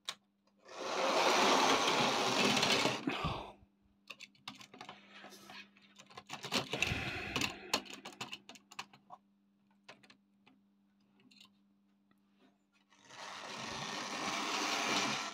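Tri-ang 'jinty' tank locomotive running with two wagons, its small electric motor whirring and the wheels clattering over rail joints and points. It runs for about three seconds, then a spell of scattered clicks, then runs again near the end as it pushes the wagons onto the turntable.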